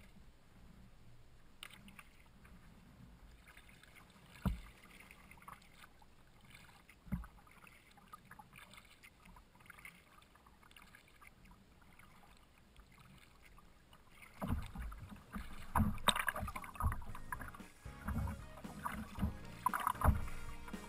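A kayak being paddled: water lapping at the hull, with two sharp knocks early on. About two-thirds of the way through it turns much louder and rougher, with irregular splashing and slapping as the kayak moves over choppy water.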